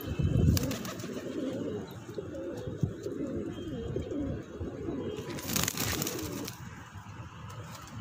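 A flock of fancy double-chap pigeons cooing, many low coos overlapping continuously. About five seconds in there is a brief rushing noise lasting about a second.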